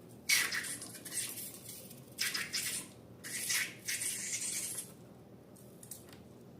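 Slime being handled and mixed, heard as several short bursts of hissy, crackly noise: one near the start, one about two seconds in, and a longer one from about three to almost five seconds in, then quiet.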